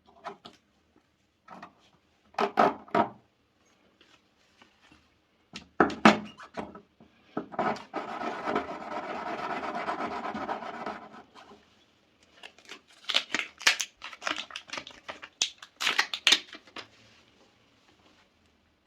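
Hand tools from a tubeless tire puncture repair kit being worked on a tire: sharp clicks, knocks and scrapes. A steady noise lasts about four seconds in the middle.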